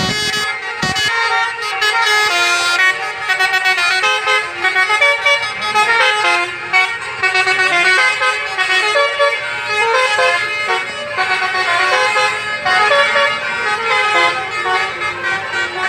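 Basuri musical bus horn playing a continuous telolet-style melody, its tones stepping quickly from note to note.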